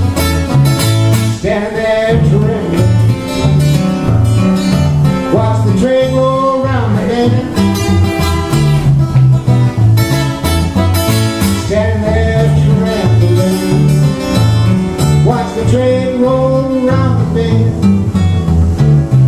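Acoustic guitar played in a steady driving rhythm with a thumbed alternating bass line, under a man's singing in several phrases with bending pitch.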